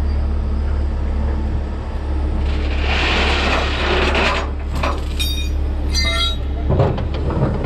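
Heavy tow truck engine running steadily. A burst of hiss comes about three seconds in, and a few short ringing clinks follow near the middle.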